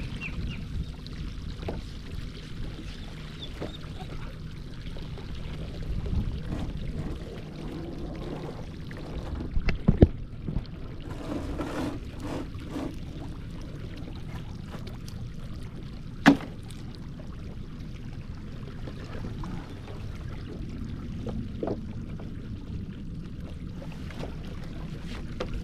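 A bait cast net being hauled back aboard a small boat, with water pouring and splashing off it over a steady low rumble. A few sharp knocks come about ten seconds in and another around sixteen seconds.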